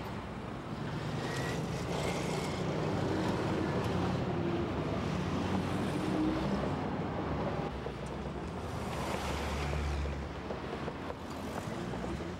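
Street traffic: cars driving past over rough patched asphalt, tyre noise and engines swelling as vehicles pass close, about two to six seconds in and again about nine seconds in.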